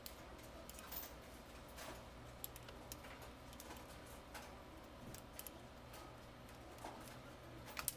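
Light, scattered clicks and clinks of a socket wrench working on a diesel engine's cylinder head, with a soft steady hum underneath.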